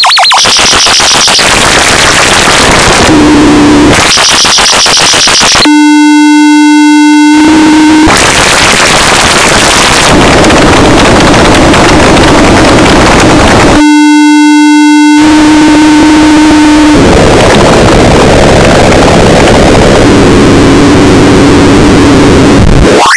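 A run of loud, harsh electronic buzz sound effects, one after another: stretches of rough static-like buzzing alternating with steady pitched buzz tones, each lasting one to a few seconds and cutting off abruptly.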